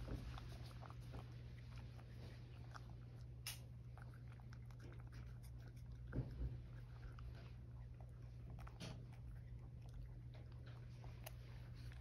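Cat licking and chewing food from a dish: faint scattered wet clicks of tongue and teeth, with a couple of soft knocks about six seconds in, over a steady low hum.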